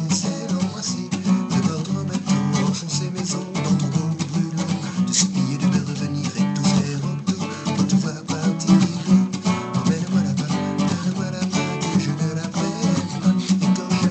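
Acoustic guitar strummed in a steady rhythm, chords ringing under regular strokes.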